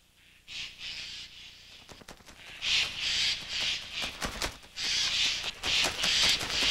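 Crows cawing, a run of harsh repeated calls that grow more frequent through the second half, with a flurry of sharp clicks and knocks in the middle.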